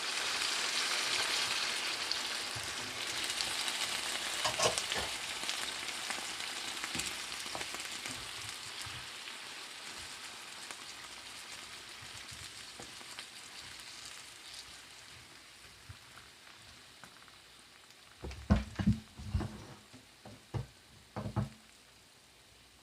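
Sautéed vegetables sizzling in a hot pan, the sizzle dying down steadily as about three cups of chicken stock go in. A few dull knocks come near the end.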